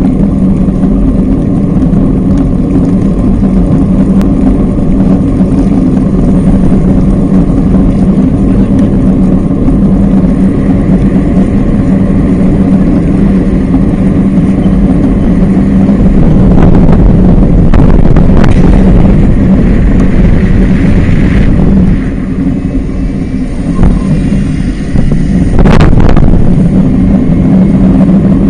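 Steady, loud rumble of riding a bicycle through city streets, heard on the bike-mounted camera's microphone, with passing traffic. A few sharp knocks in the second half.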